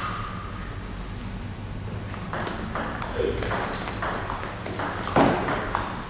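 Table tennis rally: the celluloid ball clicking off rackets and table in quick alternation, each hit with a short high ping, starting about two seconds in, with one louder hit a second before the end.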